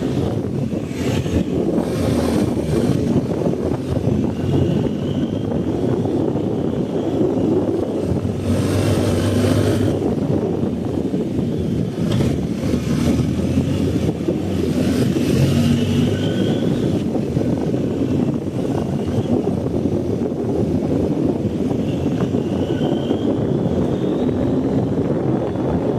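BMW R 1250 GS boxer-twin motorcycle engine running steadily while riding off-road, with a brief rush of noise about nine seconds in.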